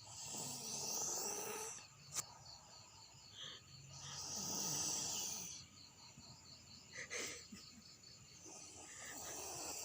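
A sleeping person snoring: three long snores about four seconds apart, with crickets chirping steadily behind.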